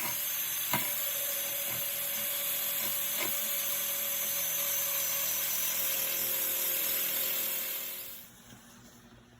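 A power tool scouring surface rust off a steel car dashboard down to bare metal, with a steady abrasive hiss and a faint motor whine. It stops about eight seconds in.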